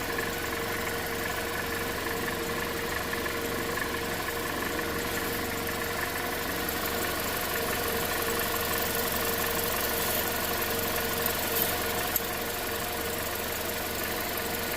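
Toyota car engine idling steadily at normal operating temperature, in park, for a transmission fluid check, with a couple of light clicks about twelve seconds in.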